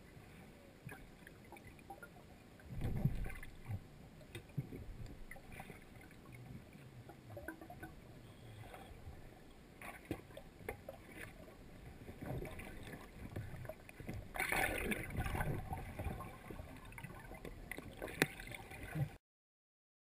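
Underwater sound picked up through an action camera's waterproof housing: muffled water noise with scattered small clicks and knocks, and louder rushing swells about three seconds in and again a few seconds before the end as freedivers swim down to the platform. A sharp knock sounds just before the sound cuts off abruptly.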